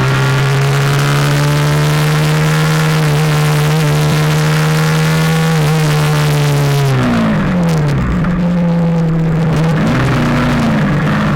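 Suzuki GSX-R150's single-cylinder four-stroke engine through an R9 GP SS aftermarket exhaust fitted with its dB killer baffle, held at high revs with the pitch climbing slowly. About seven seconds in the revs drop steeply and settle lower, with a short rise and fall of revs a little before the end.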